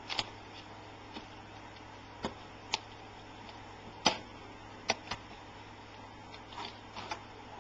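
Light, scattered clicks and taps from the thin metal frame and bracing of an LCD panel being handled and pried at during disassembly, about ten in all and irregular, the sharpest about four seconds in.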